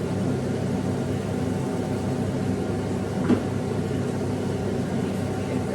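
Kitchen exhaust fan running with a steady hum, and a single short knock about three seconds in.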